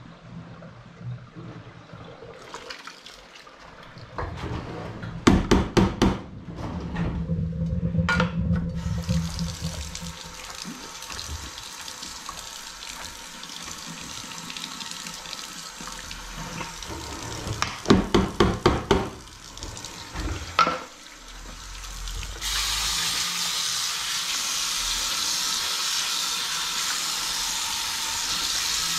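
Kitchen tap running into a sink, coming on about nine seconds in and running harder from about 22 seconds in. Twice, at about five and eighteen seconds in, a short run of rapid scrubbing strokes from a sponge on the sink basin is the loudest sound.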